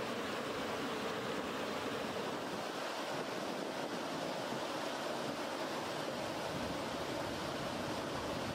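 Steady rushing of a shallow river running over rocks.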